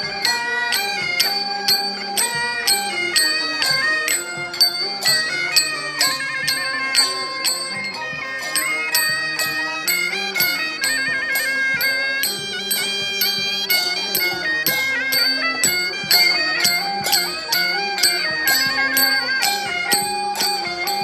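Instrumental music with a melody over held tones and a steady beat of about three strokes a second.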